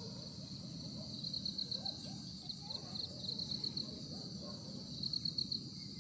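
Insects chirping in bursts of rapid, high-pitched pulsed trills, repeated several times, over a low steady outdoor rumble.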